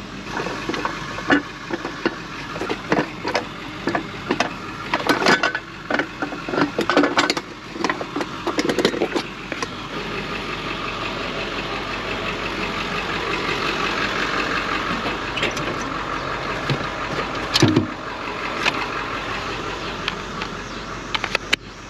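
Short metallic knocks and clicks of towing gear being handled, then a steady motor running from about ten seconds in.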